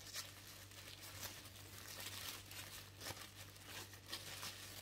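Tissue paper rustling and crinkling in repeated short bursts as it is handled and unfolded by hand.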